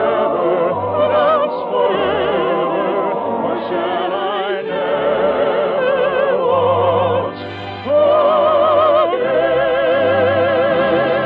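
Operetta song: a trained singing voice holding long notes with wide vibrato over an orchestra. The recording is an old radio transcription with a dull, narrow treble.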